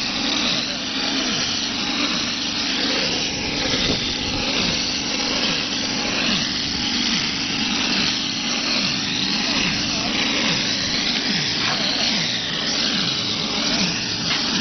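OHT38 hose-pump mortar spraying machine at work: wet mortar blown by compressed air from the spray gun nozzle onto a wall, a steady rushing noise that does not let up.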